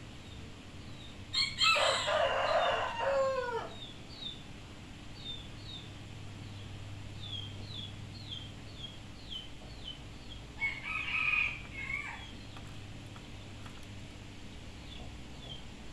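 A rooster crowing: one long crow with a falling pitch about a second and a half in, then a shorter second call around eleven seconds in.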